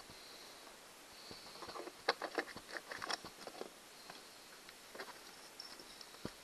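Scattered light clicks and rattles of small metal hand tools being handled: a die, its die wrench and a screwdriver, with the die being set back into a plastic tap and die set case. The clicks bunch up about two and three seconds in.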